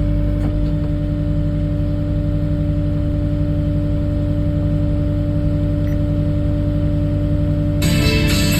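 Kubota skid-steer's diesel engine running steadily at an even speed. Near the end a brighter, fuller sound comes in over it.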